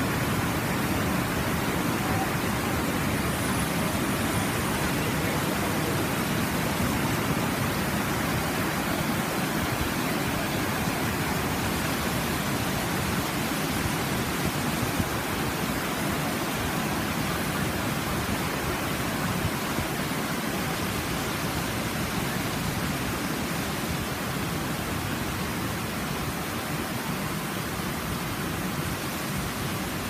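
Waterfall cascades pouring over rock ledges: a steady, even rush of water, slightly fainter in the second half.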